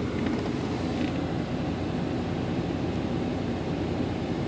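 Steady low hum inside a car's cabin with the car running, with faint rustling of paper slips in the first second.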